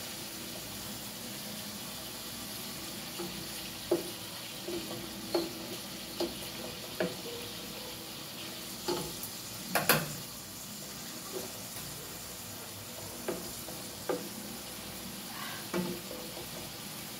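Liver sizzling as it fries in an aluminium pot, a steady hiss, while a spoon turning the pieces knocks and scrapes against the pot at irregular moments, the loudest knock about ten seconds in.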